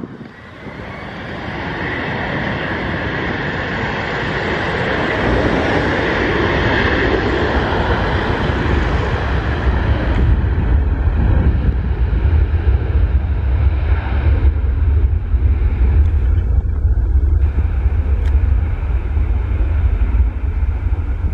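Twin rear-mounted turbofans of a Bombardier Global business jet at takeoff power during the takeoff roll. The jet noise builds over the first few seconds, a deep rumble takes over from about five seconds in, and the higher rushing sound thins out after about ten seconds.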